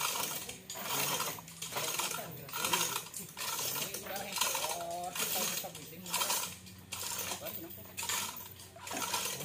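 Chain block's steel chain rattling and clinking in repeated pulls, under a second apart, as a heavy truck engine is hoisted by hand.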